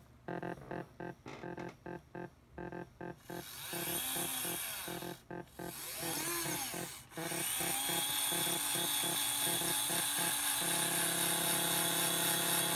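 Modular synthesizer driven by a step sequencer, playing short repeated notes about four a second. About three seconds in, a harsh buzzing noise builds over them with a couple of pitch glides up and down, and from about eight seconds it becomes a dense, steady buzzing drone.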